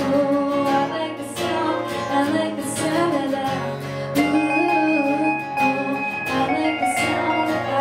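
Live acoustic guitar strumming a country-pop accompaniment in the instrumental break between chorus and verse, with a wavering melody line carried over it.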